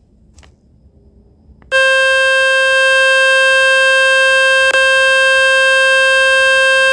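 Speaker-cleaning tone from the Fix My Speaker website, played through a Samsung phone: a loud, steady buzzing tone that starts about two seconds in and breaks for an instant near the middle. It is meant to shake dust and water out of the phone's speaker.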